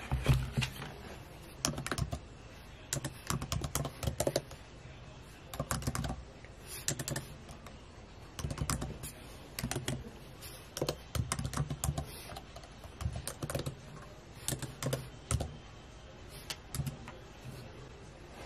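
Typing on a MacBook laptop keyboard: runs of quick key clicks in short bursts, with pauses between them.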